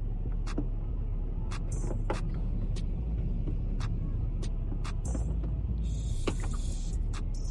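Steady low rumble with a string of sharp clicks and taps from plastic trim being pried at with removal tools, and a short hiss near the end.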